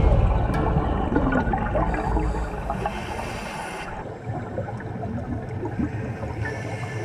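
Underwater bubbling and low rumble of scuba divers' exhaled air, heard through an underwater camera housing, slowly fading. A thin steady whistle comes in near the end.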